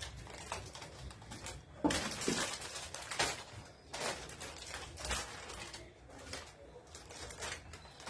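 Household items being handled and put away: a series of short clatters, knocks and rustles, the loudest about two seconds in.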